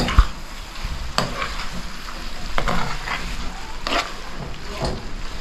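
A metal spoon stirring a frying pan of ackee, saltfish and vegetables, with a few scrapes and clinks against the pan over the food's sizzle.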